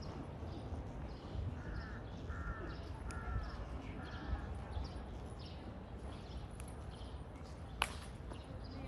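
Footsteps on stone paving at a steady walking pace over a low outdoor rumble, with a bird calling four times in quick succession about two seconds in. A single sharp click sounds near the end.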